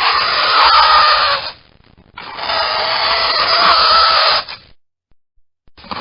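Fingernails scratching across a chalkboard in long strokes: one stroke runs to about a second and a half in, a second runs from about two seconds in to near five seconds, and a third begins at the very end.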